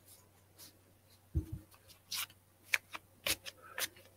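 A deck of tarot cards being shuffled and handled by hand: scattered short, sharp card clicks, mostly in the second half, with a soft low bump about a second and a half in.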